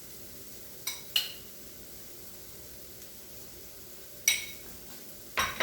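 Dishes and cutlery clinking: four sharp clinks with a short ring, two close together about a second in, one after about four seconds, and one near the end.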